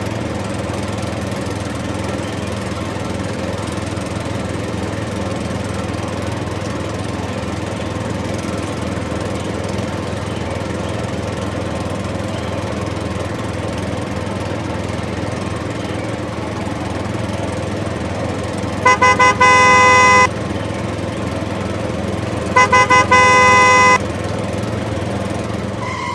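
A steady motor drone, with a horn sounding twice near the end: each time a few quick toots running into a held blast of over a second.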